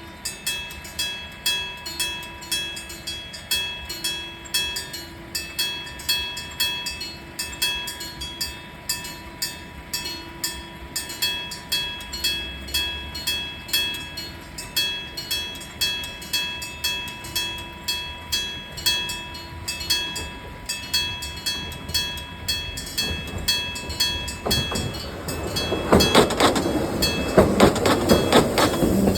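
Electric-bell (denshō-type) railway crossing alarm ringing, about two bell strikes a second with a steady metallic ring. In the last few seconds a train passes over the crossing, and its rumble and wheel clatter rise over the bell.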